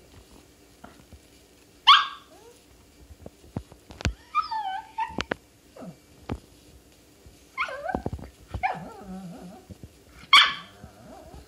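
Small dog giving a few sharp yaps, the loudest about two seconds in and again near the end, with a wavering whine in between; demand barking from a dog that wants to be picked up.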